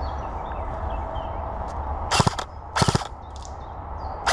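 Airsoft rifle firing three short bursts of rapid cracks, about two, three and four seconds in.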